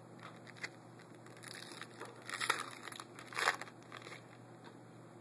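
Foil trading-card pack wrapper being crinkled and torn open by hand, loudest in two bursts around the middle.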